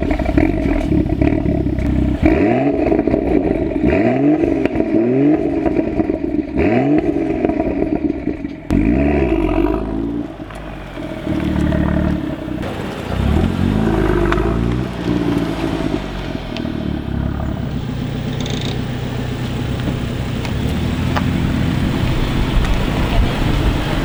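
BMW M2's turbocharged 3.0-litre straight-six with a modified performance exhaust, accelerating hard: the revs climb and drop several times in the first half. It then settles into a steadier drone, and an even rush of wind and road noise takes over near the end.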